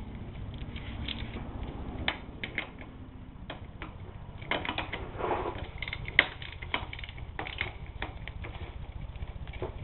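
Irregular metallic clicks and clinks of a socket wrench and the drain plug as the plug is refitted to the crankcase, the loudest click a little past the middle.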